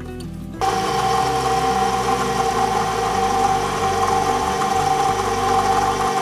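Stand mixer motor switches on about half a second in and runs steadily with a whine, driving a pasta roller attachment as dough is fed between its rollers.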